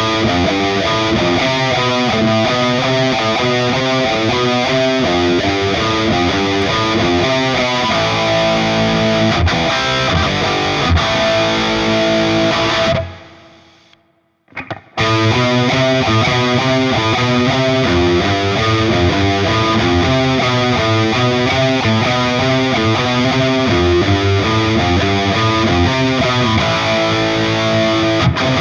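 Distorted electric guitar playing a repeated riff through a digital Friedman amp emulation on its dirty channel. About halfway through, the playing stops and drops to silence for about two seconds, then the same riff starts again: one take on the Flamma FS06 preamp pedal and one on the Line 6 Helix model.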